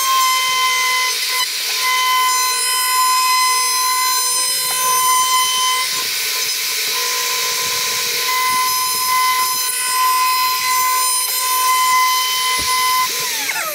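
Porter-Cable router running at full speed with a high, steady whine while its CPR bit trims around the edge of a subwoofer box's circular cutout, enlarging the hole. Near the end it is switched off and its pitch falls as the motor spins down.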